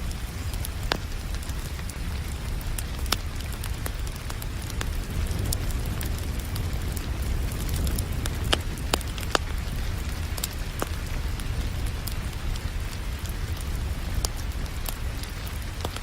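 Wood fire crackling, with scattered sharp pops and a few louder snaps about halfway through, over a steady hiss of rain and a low rumble.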